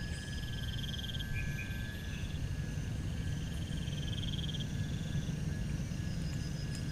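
Night chorus of frogs and insects: two rapid high trills, each about a second long, near the start and in the middle, over a steady high whine. A constant low rumble lies underneath.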